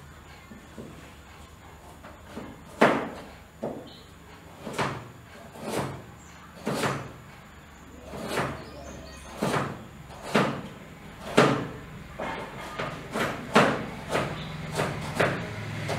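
A kitchen knife chopping through a carrot. Its sharp strikes come about once a second from about three seconds in and get faster near the end.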